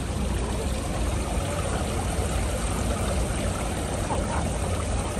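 Water spilling over the rim of a granite fountain pool and running down its stone face: a steady wash of running water.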